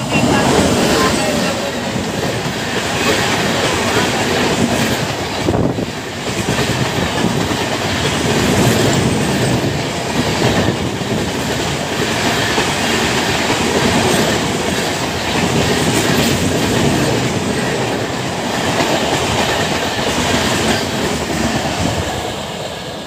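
LHB passenger train hauled by a WAP-7 electric locomotive passing close by at speed: a steady, loud rush of wheel and rail noise from the coaches, easing off near the end as the last coach goes by.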